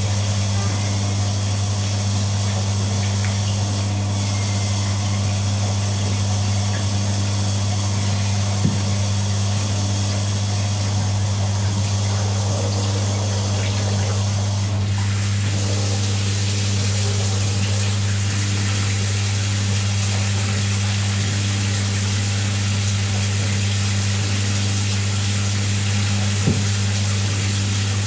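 A steady, unchanging low hum from a running motor or appliance, with a couple of faint clicks.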